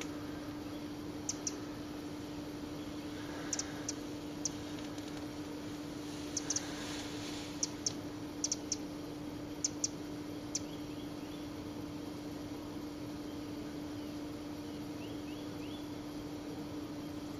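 Steady low hum and hiss, with about a dozen short, sharp, high-pitched ticks in ones and pairs over the first ten seconds or so, and a few faint chirps near the end.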